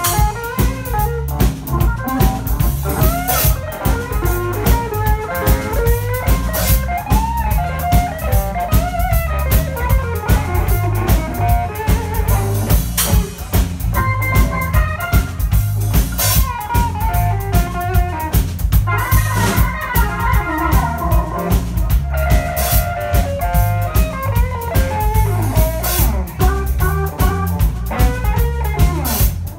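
Live blues band: an electric guitar plays a lead solo with string bends and quick runs, over drum kit, bass and keyboard.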